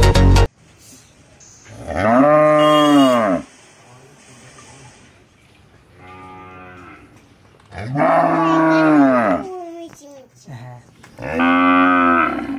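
A cow mooing: three loud, long moos, each rising and then falling in pitch, with a fainter moo between the first two.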